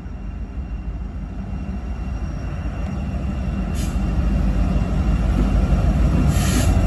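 Norfolk Southern freight train's lead diesel locomotive approaching at a crawl, its engine rumble growing steadily louder as it nears. Two brief high-pitched noises cut in, about four seconds in and again near the end.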